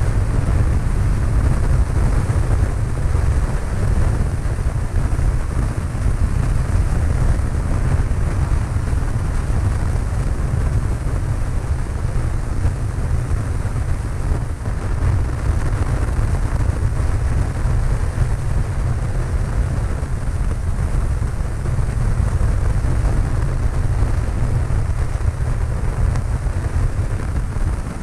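Cessna 152's four-cylinder Lycoming O-235 engine and propeller running steadily in flight, a constant low drone with airflow noise over it.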